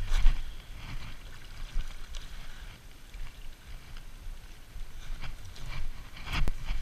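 Footsteps crunching on a dirt path and through brush, with leaves and stems rustling and swishing against legs and gear. The steps come irregularly, about one a second, over a low rumble from the walking.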